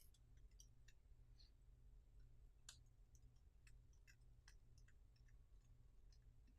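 Near silence: a faint steady low hum with scattered small, sharp clicks at irregular intervals. The most distinct click comes a little under three seconds in.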